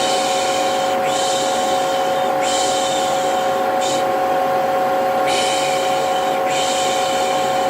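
Vacuum cleaner motor running steadily with a constant whine, overlaid by a person's repeated 'pış pış' shushing, a hissy 'shhh' about once a second. The kind of steady soothing noise used to calm a baby to sleep.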